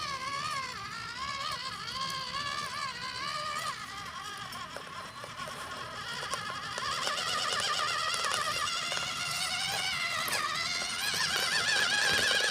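Electric motor and two-speed gearbox of a scale RC off-road crawler whining under load on a steep climb, the pitch wavering up and down with throttle and traction. The whine grows louder about halfway through.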